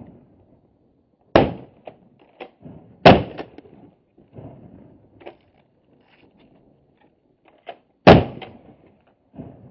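Shotgun shots at passing ducks: three loud reports, about a second and a half in, about three seconds in and about eight seconds in, each trailing off in an echo, with fainter pops between.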